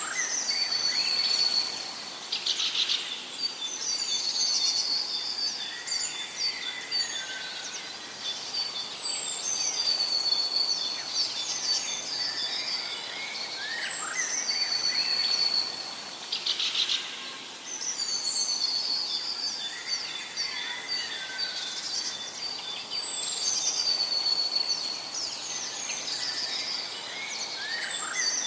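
Several birds singing and calling together: chirps and whistled phrases that recur every few seconds, over a steady hiss.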